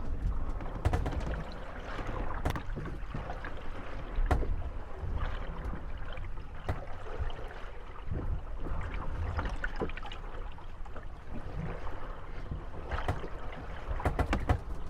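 Moored wooden gondolas rocking in the waves, knocking and creaking against each other, with water sloshing around the hulls. Irregular sharp knocks come every second or so over a steady wash and low rumble.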